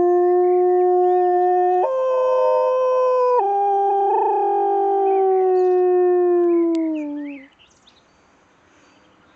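A dog's single long howl, held on one pitch, stepping up about two seconds in and dropping back about three and a half seconds in, then sliding down in pitch and ending about seven and a half seconds in.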